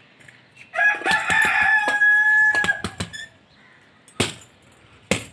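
A rooster crows once, a long held call starting about a second in and lasting about two seconds. Short thuds of punches landing on a hanging Everlast punching bag come through it, with two louder hits near the end.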